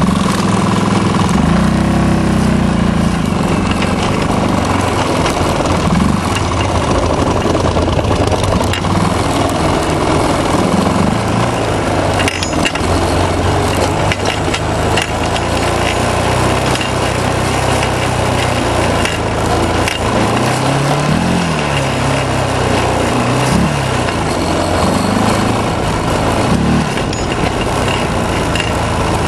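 Honda TRX 350 ATV engines running as the quads ride through powder snow. The pitch rises and falls a few times about two-thirds of the way through, as the throttle is worked.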